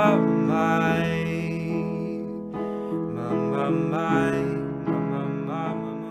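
Background music, slowly getting quieter as the song fades out.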